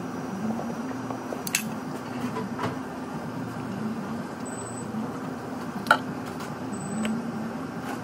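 A few short, sharp clicks and taps of plastic wire connectors and leads being handled at a refrigerator compressor, the loudest about six seconds in, over a steady low hum.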